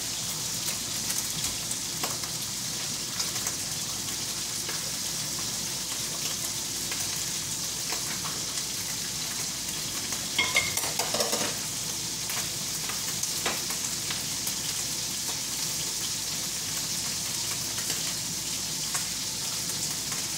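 Food frying in oil in a pan: a steady sizzle with small crackles. A few louder clatters of dishes and a pot come about halfway through.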